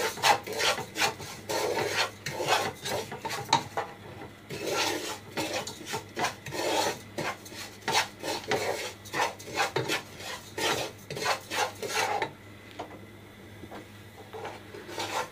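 Wooden spatula scraping and stirring sugar and ground cashew and pistachio around a nonstick pan, in quick repeated strokes about two to three a second, as the sugar is fried in ghee to brown it. The scraping falls away and goes quieter for the last few seconds.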